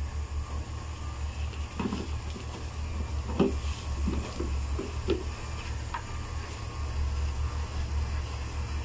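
Handheld hot-air plastic welding gun blowing steadily, a low hum with hiss, while heat-welding a joint in PVC waterstop. A handful of short knocks and rustles of handling between about two and six seconds in.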